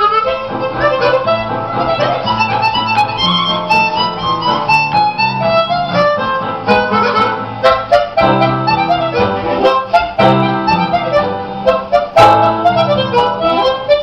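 Background music: a harmonica playing a melody over a rhythmic accompaniment.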